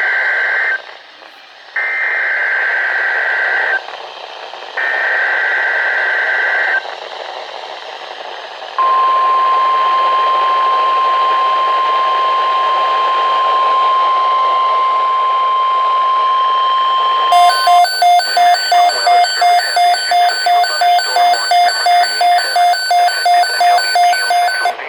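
NOAA Weather Radio EAS alert: three screeching bursts of the digital SAME header about a second apart, then the steady 1050 Hz Weather Alert Tone held for about nine seconds. It is followed by rapid electronic beeping, about three beeps a second, over a hiss of radio static.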